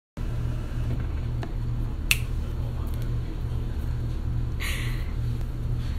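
A single sharp click about two seconds in, then a short breathy rush of hiss near the end, over a steady low hum.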